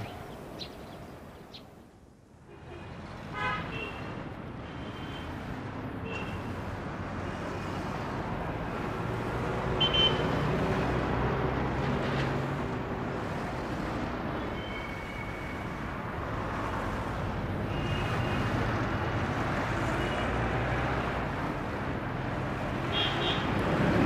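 Street traffic: a steady drone of passing road vehicles with short car-horn toots now and then.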